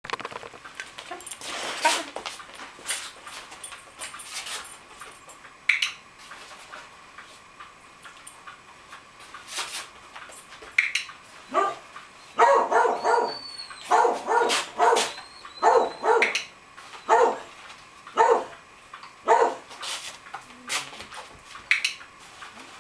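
A dog barking repeatedly, about one bark a second, beginning about halfway through. Before that there are only scattered light clicks and taps.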